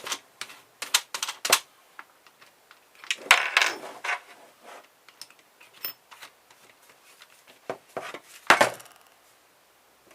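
Clicks and clatter of hand tools and the car stereo's metal parts being handled on a work table, in a few short bursts, with one loud knock near the end.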